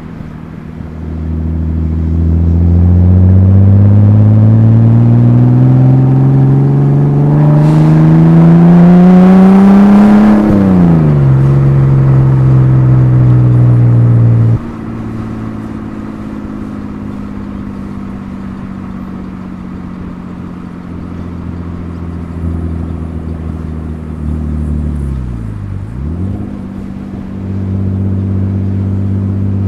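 Exhaust of a Nissan R31 Skyline's RB25DET Neo turbocharged straight-six, recorded from the rear. It pulls hard with the note climbing steadily for about ten seconds, drops sharply and holds briefly, then goes much quieter off the throttle. Near the end the pitch dips and recovers, then climbs again.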